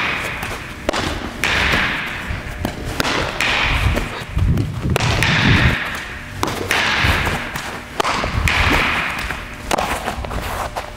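Baseball fielding sounds: a series of dull thumps and sharp knocks as a ball is fielded off artificial turf into a leather Wilson A2K 1786 infield glove.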